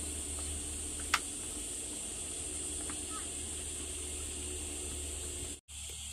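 Steady background hiss over a low hum, with one sharp click about a second in and a few faint ticks. The sound drops out for a split second near the end.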